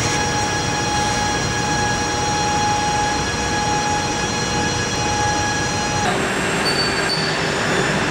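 Steady industrial machinery noise in a factory hall: an even rushing noise with several steady high whining tones over it, the mix changing abruptly about six seconds in.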